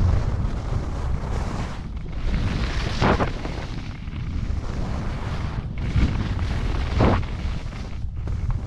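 Wind buffeting a moving action-camera microphone as a skier descends, a constant low rumble, with two louder hissing swooshes of ski edges scraping through snow on turns, about three and seven seconds in.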